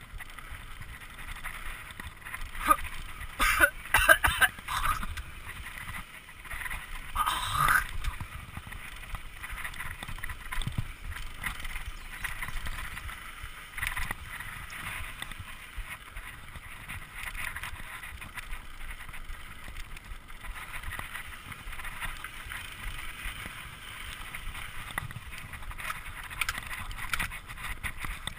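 Mountain bike ridden fast on dirt singletrack: tyres rolling over the trail and the bike rattling over bumps, with wind noise on the camera microphone. Louder bursts come a few seconds in.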